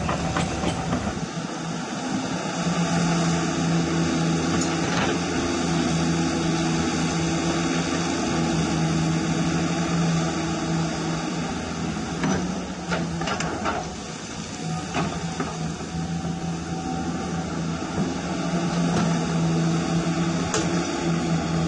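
RC model hydraulic excavator (a Cat 336 replica) running its hydraulic pump with a steady hum while the boom, arm and bucket dig wet clay. A few short knocks and scrapes from the bucket and tracks, the clearest about a second in and between about twelve and fourteen seconds in.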